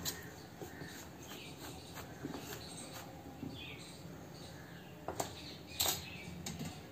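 Faint scraping and light clicks of a steel spoon stirring dry gram-flour mix in a stainless steel bowl. Two sharper clicks come near the end.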